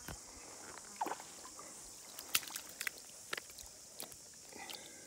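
Light water sloshing and small splashes as a landing net holding a brown trout is moved about in shallow water, with a handful of short sharp splashes or knocks over a steady high hiss.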